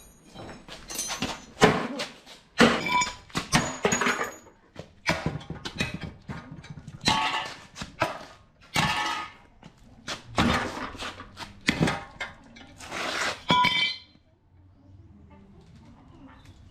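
Metal clanking and clinking: tools and metal parts striking one another in an irregular run of sharp hits, some ringing briefly. The clatter stops about 14 seconds in, leaving only a faint low hum.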